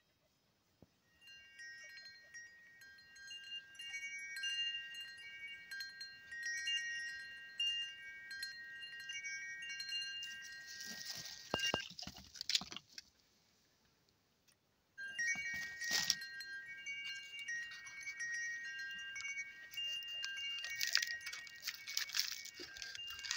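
Tinkling chimes: many clear, high metal notes ringing and overlapping, with a few sharper clinks among them. They break off for about two seconds midway, then start again.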